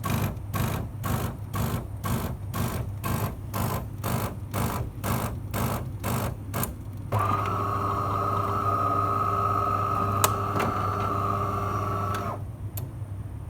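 DeLonghi Eletta Cappuccino bean-to-cup coffee machine working: a rhythmic pulsing about two and a half times a second, then a steady whine over a low hum for about five seconds, which cuts off near the end.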